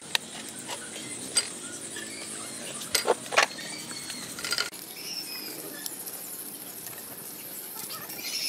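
A knife and hands working a pig's head on a wooden board, cutting and pulling the flesh apart, with scattered sharp clicks and cracks, the loudest cluster about three seconds in.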